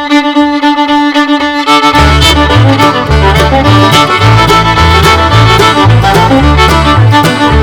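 Upbeat intro music led by a fiddle: a held opening note, then a bass line comes in about two seconds in with a steady beat.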